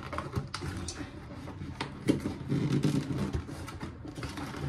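Hands working at a taped cardboard shipping box, trying to get it open: scattered taps, scrapes and rustles of cardboard and tape, with a few sharper clicks.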